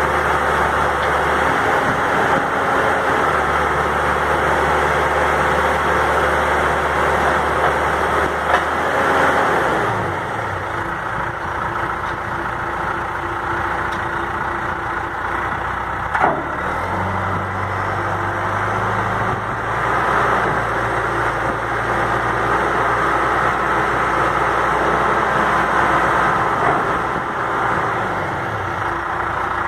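2001 John Deere 310S loader backhoe's diesel engine running steadily, its note changing about a third of the way in and again a little past halfway, with one sharp knock about halfway through.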